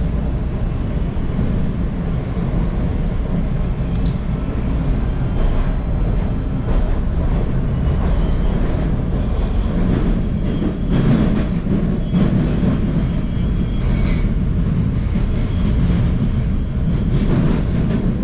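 Subway train running through the tunnel, heard from inside the car: a loud, steady rumble of wheels on rails with a few clacks and a brief high squeal about fourteen seconds in.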